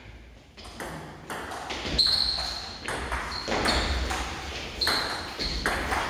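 A table tennis ball being hit back and forth between rubber bats and the table in a doubles rally, about two or three sharp clicks a second. Each hit has a short, high ping.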